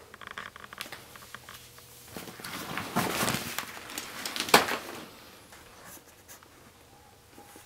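Rustling and scattered clicks and knocks in a small room, louder for a couple of seconds around the middle, with one sharp knock about halfway through.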